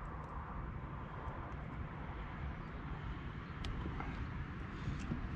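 A few faint clicks and taps of a fishing hook being worked free from a large catfish's mouth, over a steady low outdoor rumble.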